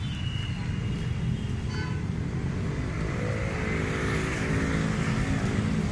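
Street traffic with a motor scooter passing close by, its engine sound swelling and then fading between about three and five seconds in, over a steady low traffic rumble.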